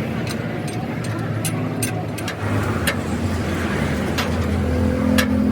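An engine running steadily, its pitch rising slightly near the end, with scattered sharp clicks over it.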